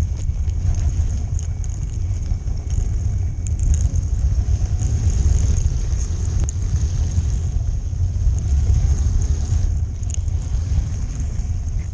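A 1/18 scale model train running along its track, heard from a camera riding on board: a steady, loud low rumble with a thin, constant high whine and scattered small clicks.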